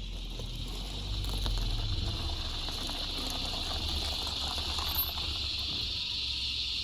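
Steady high-pitched insect chorus buzzing continuously, with a low uneven rumble underneath.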